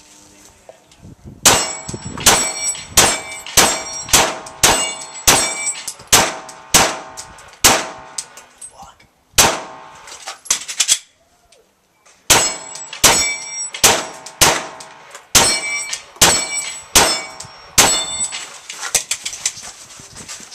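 Pistol shots fired at steel targets, each followed by the ringing clang of a struck steel plate. They come about one every three quarters of a second, in two strings of roughly eight or nine shots with a pause of a few seconds between them.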